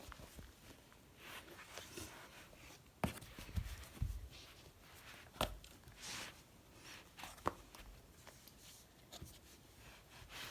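Scattered light taps and clicks with brief rustling, the small sounds of a device and its packaging being handled, heard in a small room.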